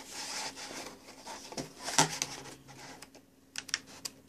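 Paper pages of a folded instruction booklet being leafed through and handled: rustling with light taps and sharp paper clicks, a run of short clicks near the end.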